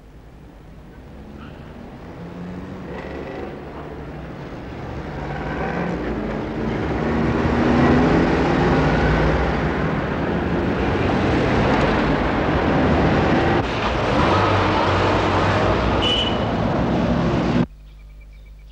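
A loud rushing roar that swells over the first several seconds, holds, and cuts off abruptly near the end.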